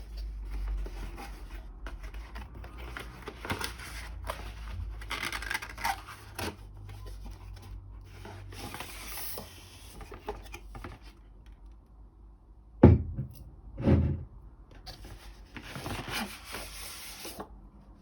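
Packaging being unwrapped and handled: paper and cardboard rubbing, scraping and rustling in irregular bursts. About two-thirds of the way through come two dull knocks about a second apart, the loudest sounds.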